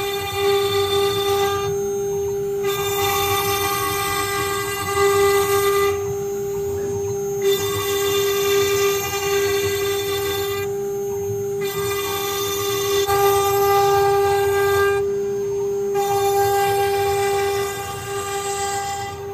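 UG-6090 small CNC engraving router's spindle running with a steady high whine while its bit carves a design into a board. The upper tones and cutting hiss drop away briefly four times, about every four seconds.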